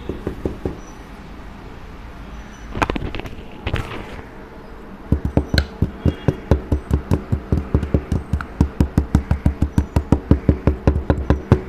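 Knife cutting kinetic sand: a few taps and short crunches at first, then from about five seconds in a rapid, even run of sharp chopping strokes, about five a second.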